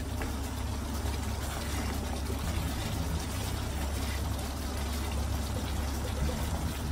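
Thick spiced curry sauce simmering and bubbling in a frying pan while a wooden spatula stirs it, over a steady low hum. The bubbling, with oil rising to the surface, is the sign that the spice base is cooked.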